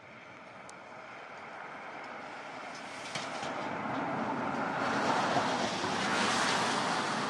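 A car passing on a wet street: the hiss of its tyres on the wet road swells steadily and is loudest about five to six seconds in.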